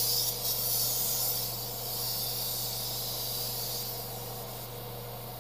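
Airbrush spraying in one steady hiss of several seconds that starts suddenly and fades out near the end, laying black paint over white to tone it down.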